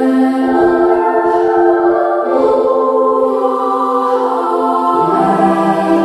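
Background music of sustained choir-like voices holding long notes, moving to a new chord about two seconds in and again near the end.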